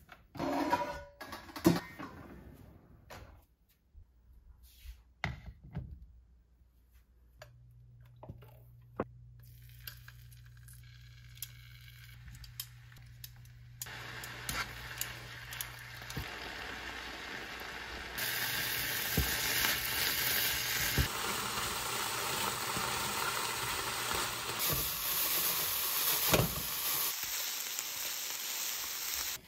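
Pots and pans knocking as a cookware drawer is pulled open, then diced chicken sizzling in a nonstick frying pan, the sizzle louder over the second half with a few sharp spatula knocks.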